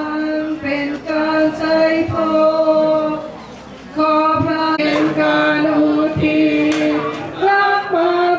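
Men and women singing a slow hymn together in long held notes, briefly dropping away a little past three seconds in.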